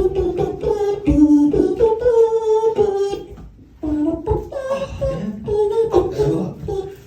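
Live vocal looping: layered wordless voice lines over beatboxed percussion, built up with a loop station. The sound briefly drops away a little past halfway, then the layers return.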